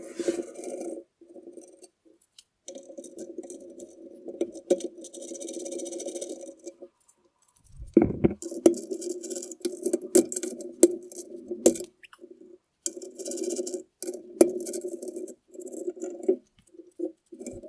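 Bolts being undone on a Toyota Land Cruiser BJ42 frame with a wrench or driver. A steady buzzing sound runs in stop-start stretches of a second to a few seconds, with metal clicks and clinks between them.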